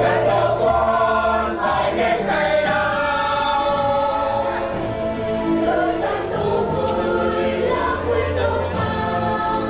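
A choir singing a hymn at Mass, with a low sustained instrumental accompaniment underneath.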